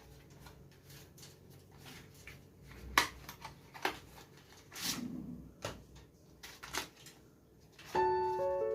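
Hands handling a Crucial 500 GB SSD: a few scattered light clicks and taps, with one softer thump about halfway through. Background music with piano-like notes starts near the end.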